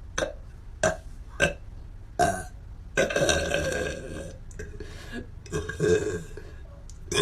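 A woman burping: four short, sharp sounds in the first two seconds or so, then a long, drawn-out belch from about three seconds in that swells again near six seconds.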